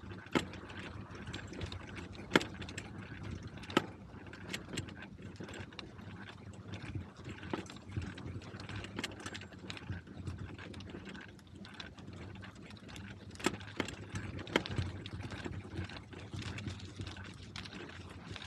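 Rolling noise of a bicycle ride: a steady low rumble, with scattered sharp clicks and knocks every second or two.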